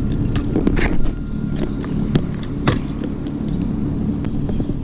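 Spinning reel being cranked to wind in a hooked stingray that has just come up off the bottom: a steady low rumble with a few sharp clicks.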